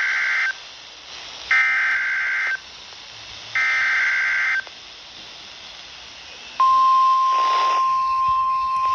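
Emergency Alert System SAME header: three one-second bursts of screeching digital data, then a hissy pause, then the single steady 1050 Hz weather-radio alarm tone starting near the end. This is the header opening a tornado warning.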